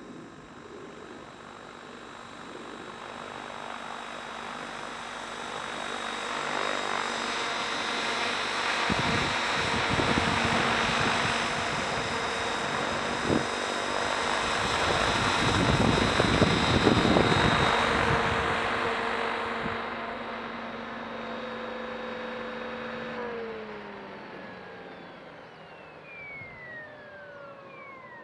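Mikado Logo 550SX electric RC helicopter flying close by, its motor and rotor whine growing louder as it nears, with gusts buffeting the microphone in the middle. Near the end the motor and rotors spool down after landing, the whine falling steadily in pitch.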